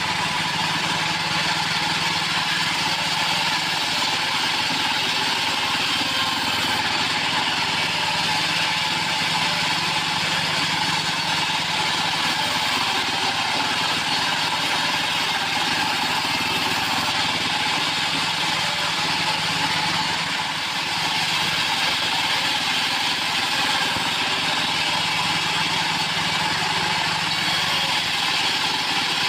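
Portable bandsaw sawmill running steadily, its engine at an even speed.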